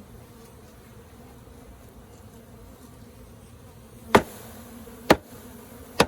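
Steady buzzing of a package of honeybees, then three sharp knocks about a second apart near the end as the bee package is banged down to shake the bees to the bottom.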